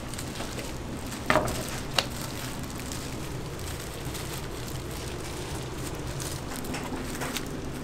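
Kitchen work at a kimbap station: two knocks, about a second and a half and two seconds in, from a large knife cutting through a kimbap roll onto a plastic cutting board, over a steady low hum of kitchen background.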